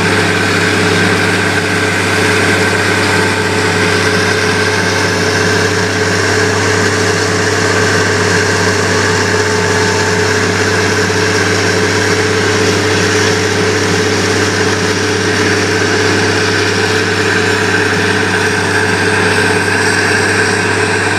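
Vermeer grinder's diesel engine running steadily at constant speed while grinding corn cobs: a loud, unchanging drone.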